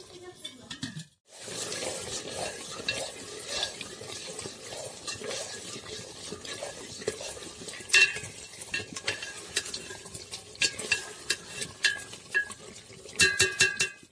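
Mutton sizzling as it is stir-fried in masala in a brass pot, a metal spoon scraping and clicking against the pot as it stirs. The meat is browning. There is one sharp clink midway and a quick run of metallic clinks near the end.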